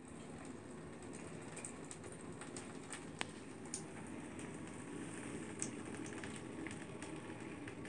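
Bathtub spout running a thin stream of water into the tub: a steady soft splashing, with a few faint ticks.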